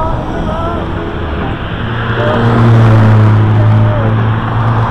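Car traffic passing on the road beside a moving bicycle. From about two seconds in, a steady low engine hum gets louder and dominates.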